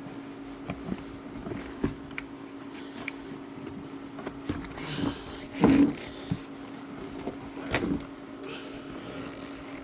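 Scattered rustling, clicks and a few knocks as the car's interior carpet and trim are pulled back and handled, over a steady low hum. The two loudest knocks come about halfway through and again a couple of seconds later.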